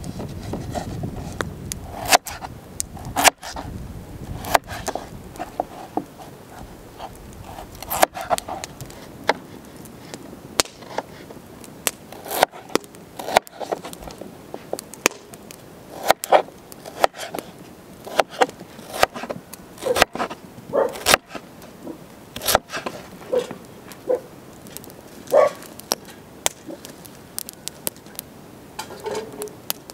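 Kitchen knife cutting raw potatoes on a wooden cutting board: irregular sharp knocks of the blade hitting the board, with scraping of peeling at the start.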